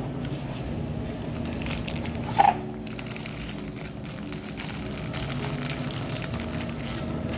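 L.O.L. Surprise toy packaging crinkling and crumpling as it is opened by hand, with many small crackles. A brief, louder sound stands out about two and a half seconds in.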